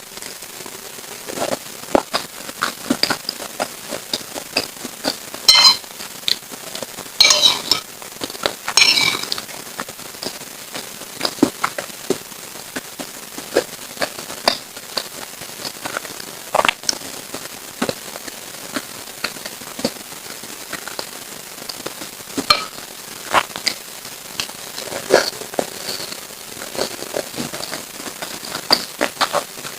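Close-miked eating sounds of a person chewing lontong sayur: wet mouth clicks and crackles spread throughout, with denser bursts of crackling about six to nine seconds in.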